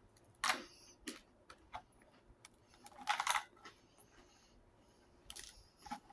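Thin clear plastic snack tray crackling and clicking as it is handled, with a few short crackles and the loudest cluster about three seconds in, mixed with the crunch of a butter cracker being chewed.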